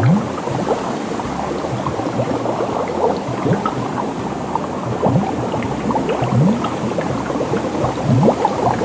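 Water bubbling and gurgling: many short rising blips over a steady rushing hiss.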